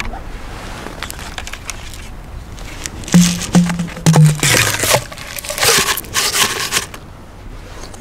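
A paper-wrapped firework cylinder shell scraping as it is pushed down into a mortar tube, with crinkling and rustling handling noise. The sound comes in rough bursts that are loudest from about three seconds in, with a few short low notes that step down in pitch.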